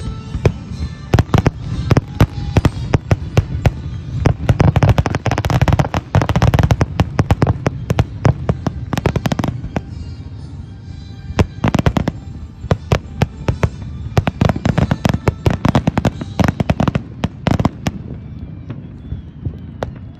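Fireworks display: a rapid run of shell launches and bursts, each a sharp bang over a low rumble. The bangs come thickest about four to seven seconds in and again around fifteen to eighteen seconds, and thin out near the end.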